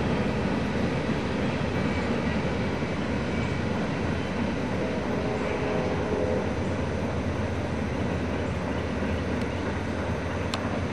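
CSX freight train's cars rolling past and away on curved track: a steady rumble of steel wheels on rail as the train slows under braking, its brake shoes dragging hard enough to smoke.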